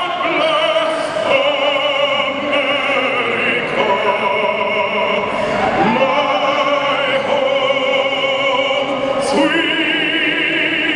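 A male singer singing in an operatic style, with long held notes and wide vibrato. He climbs to a higher held note near the end.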